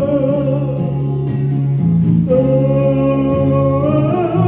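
Gospel singing: a voice holds long drawn-out "ooh" notes over steady instrumental accompaniment. A new held note comes in a little past two seconds and rises in pitch near the end.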